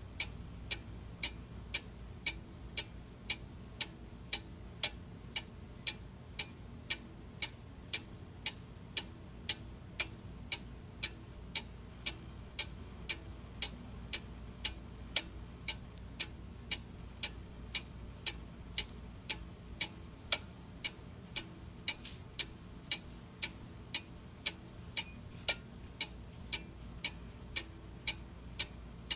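Clock ticking steadily, about two even ticks a second, over a faint low hum.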